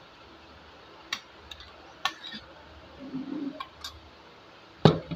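Metal spoon clinking against a metal serving pot and plate as rice is served: a few separate clinks about a second apart, then a louder knock near the end.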